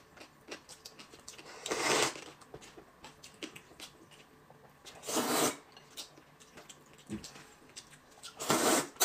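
Someone eating noodles with chopsticks: three short, loud slurps about three seconds apart, with light clicks of chopsticks against bowls in between.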